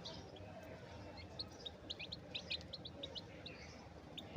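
Domestic chicken chicks peeping: a scattered run of short, high cheeps, thickest around the middle, fairly faint.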